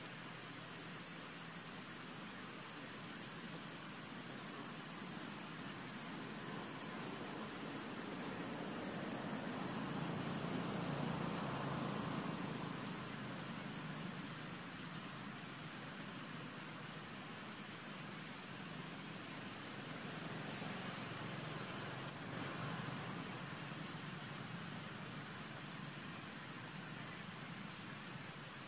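Steady high-pitched insect chorus, a continuous trilling drone with a faint pulsing edge, over soft outdoor ambience.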